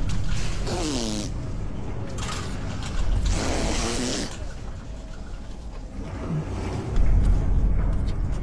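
Agitated lions in transport cages snarling, a few hissing bursts each with a falling tone in the first half, over a steady low rumble that grows louder near the end.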